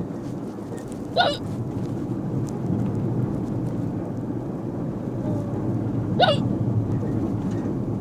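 A person hiccupping twice, about five seconds apart, each a short sharp catch of the voice, over the steady low rumble of a moving bus.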